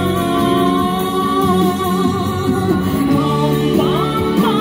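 A woman singing into a microphone over instrumental backing, amplified through PA speakers. She holds long wavering notes, then her voice slides up and down near the end.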